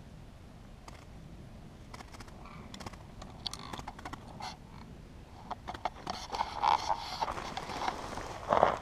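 Hands working at a net bird trap: irregular rustling, small clicks and snaps of netting and sticks, growing busier and louder in the second half.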